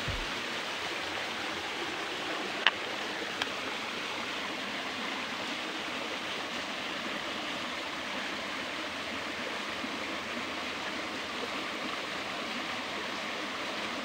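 Shallow rocky stream trickling steadily over stones in small cascades, with a sharp click about two and a half seconds in.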